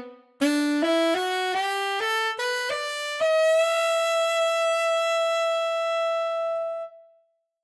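Tenor saxophone (Infinite Woodwinds sampled instrument, shaped with dynamic EQ and reverb) playing a quick rising run of short notes. The run ends on a long high held note that fades out about seven seconds in.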